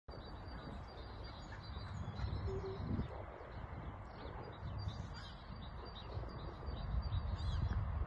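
A flock of gulls calling, many short calls overlapping one another, over a low, gusting rumble of wind on the microphone.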